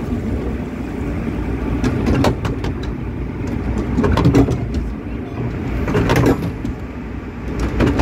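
Log flume boat being carried up the lift ramp: a steady low mechanical rumble with scattered clacks every couple of seconds, and faint voices.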